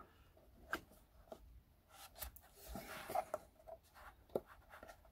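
Faint scraping and light clicking of a laser-cut wooden panel being pushed and wedged into the slots of a small wooden box, with a few sharper taps, the sharpest near the end.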